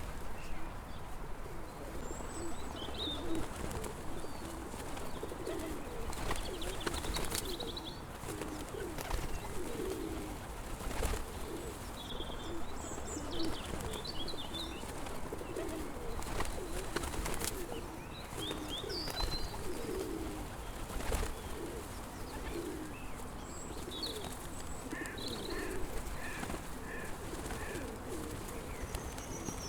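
Pigeons cooing over and over in overlapping low phrases, with short high chirps of small birds scattered through and a few sharp clicks.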